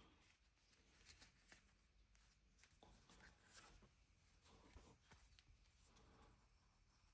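Near silence, with faint scattered clicks and rustles of handling.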